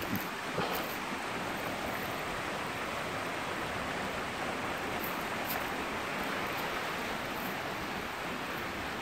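Steady rushing of a stream flowing over rocks, with a few faint clicks in the first second.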